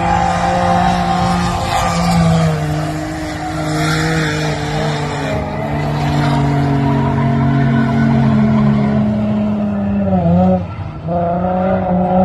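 Holden VY Commodore's Ecotec V6 engine running hard while drifting, with the tyres squealing. Near the end the revs dip briefly, then pick up again.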